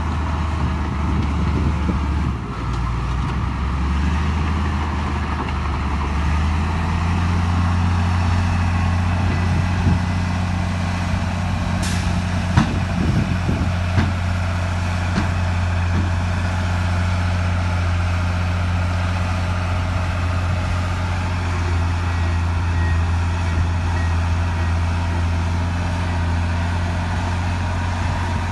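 Heavy diesel engine of earthmoving machinery running steadily under load. Its note steps up about six seconds in, and a few short knocks come partway through.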